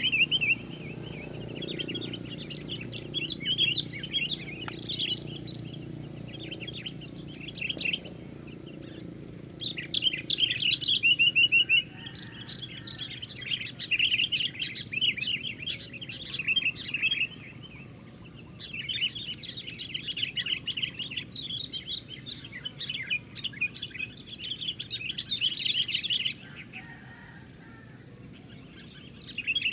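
Sooty-headed bulbul (kutilang) singing loud chattering phrases of rapid notes, in bouts several seconds long separated by short pauses.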